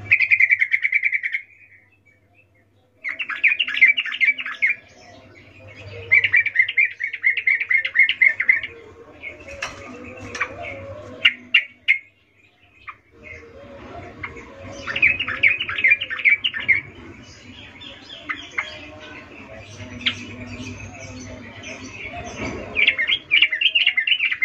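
Yellow-vented bulbul singing: about seven short phrases of rapid, evenly repeated chattering notes, each lasting one to two seconds, with pauses of a second or two between them.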